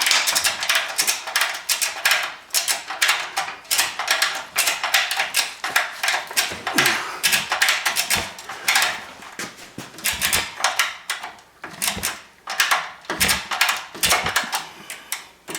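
Ratchet strap being cranked: quick runs of metallic clicks from its ratchet, with scattered clanks and a few dull thumps in the second half as the axle's suspension is pulled up under the frame.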